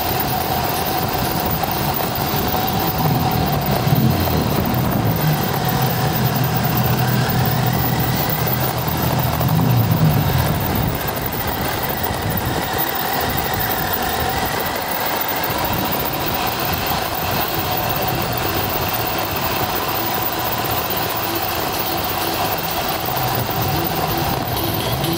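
A radio-controlled car's motor running as the car drives across grass, with a steady whine and a higher tone that rises and falls with its speed.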